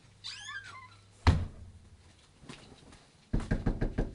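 A brief high squeak, then a single loud slam of a door about a second in. Near the end comes a quick run of knuckle knocks on a door, about eight in under a second.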